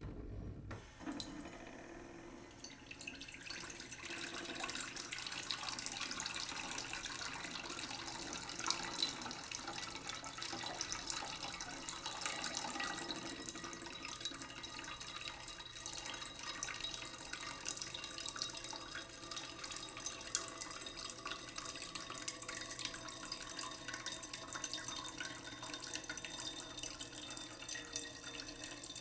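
A thin stream of tap water running into a cooking pot in a sink, splashing and ringing inside the pot as it slowly fills. The stream starts just after the beginning and grows fuller over the first few seconds, and the pot's ringing tone slowly shifts in pitch as the water rises.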